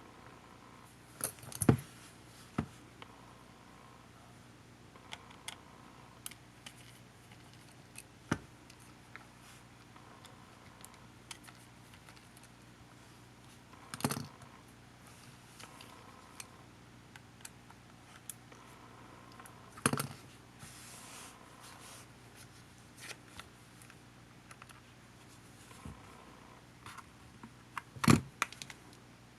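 Scattered clicks and taps of small tools on the plastic parts of a camcorder being taken apart, with a few louder knocks spaced several seconds apart. A low steady hum runs underneath.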